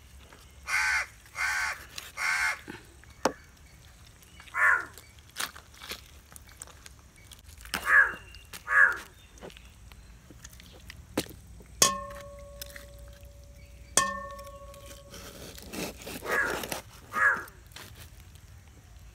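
Crows cawing: about eight harsh caws in short groups. About midway, twice, a sharp metallic clink rings on briefly, and there are a few faint taps of a knife on a wooden cutting board.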